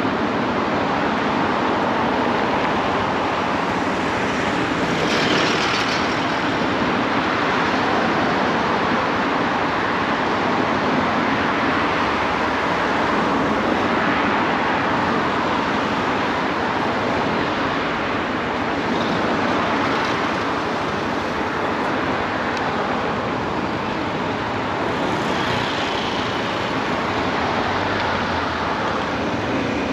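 Steady road and traffic noise heard from a motorcycle riding slowly in city traffic, with brief swells of hiss about five seconds in and again near twenty-five seconds.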